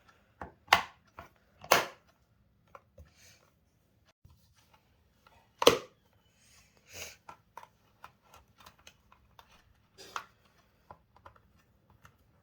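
Electric iron parts being handled and fitted back together by hand: a few sharp clicks and knocks with small ticks and rustles between them.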